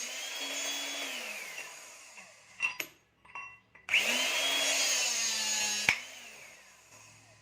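Electric hydraulic rebar cutter: its motor whine winds down, a few light clicks follow, then the motor starts up again and runs, with one sharp crack about two-thirds of the way through as the steel bar is sheared, after which the motor winds down.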